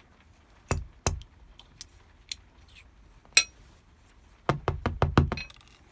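Small metal lock parts being handled as a Cisa lock's pin stack is taken out of the core: sharp clicks and taps, two about a second in and a quick run of five or six near the end, with one bright ringing clink about three and a half seconds in.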